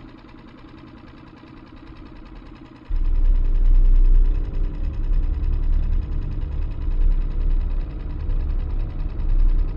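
Small Mercury outboard motor running steadily, pushing the boat at trolling speed. About three seconds in, a loud low rumble suddenly comes in over it and stays.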